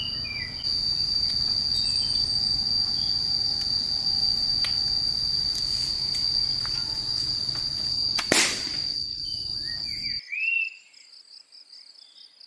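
A steady, high-pitched insect drone, cut by one sharp crack about eight seconds in; near the end the drone gives way to quieter, pulsed chirping.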